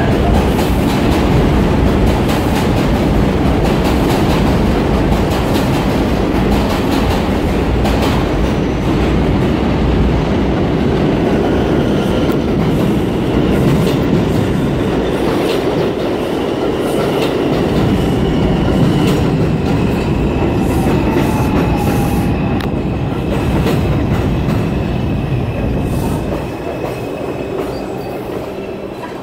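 New York City subway R142 train running along the platform of an elevated station: a loud steady rumble and clatter of steel wheels on rail, with thin high squeals from the wheels through the middle and later part. The sound falls away over the last few seconds.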